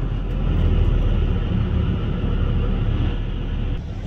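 Semi-truck's diesel engine running as the truck pulls forward, heard from inside the cab as a steady low rumble. It grows slightly louder about half a second in, and the higher part of the noise drops away suddenly near the end.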